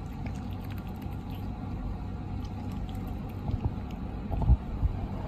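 Low rumbling background noise with a few soft bumps from about three and a half to four and a half seconds in, from a hand and a baby otter moving on a wooden tabletop.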